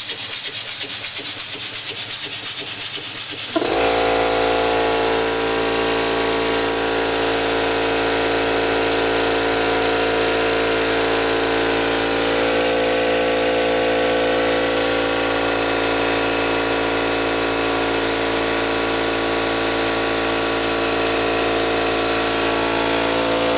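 Homemade double-acting steam engine running on compressed air, its exhaust puffing in a quick, even rhythm. About three and a half seconds in, a loud, steady machine hum starts and holds unchanged, covering the puffing.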